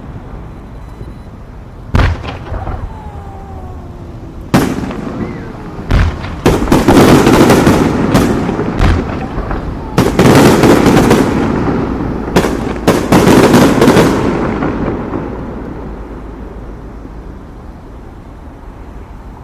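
Fireworks: aerial shells going off with single sharp bangs, then three spells of dense crackling bursts, and dying away into a fading rumble near the end.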